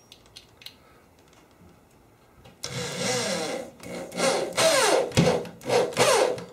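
Corded electric drill driving a drywall screw through drywall into a wooden stud. It comes in several short bursts starting about two and a half seconds in, the motor's pitch rising and falling as the screw bites. The drill has no depth-setting clutch, and the screw is sunk deep enough to break the drywall's paper face.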